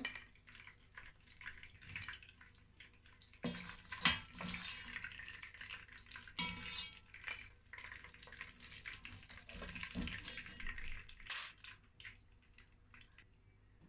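Slotted spatula knocking and scraping against a pot and a plate as fried croaker pieces are lifted out of the frying oil, with scattered knocks (the loudest about four seconds in) over a light crackle of hot oil.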